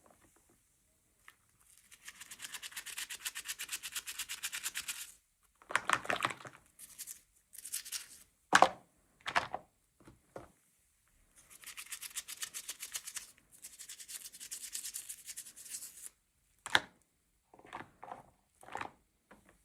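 Toy packaging being handled: two long stretches of rapid scratching and rubbing on plastic or cardboard, with several sharp clicks and taps between them.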